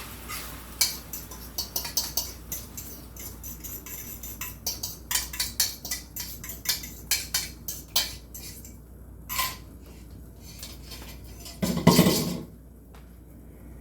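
A metal utensil clinking and tapping repeatedly against a dish as the eggs are worked. There are about two to four clinks a second in an uneven rhythm, and one louder clatter about twelve seconds in.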